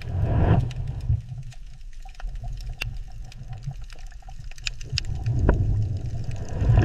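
Underwater ambience: a low rumble of moving water that swells twice, with scattered faint clicks.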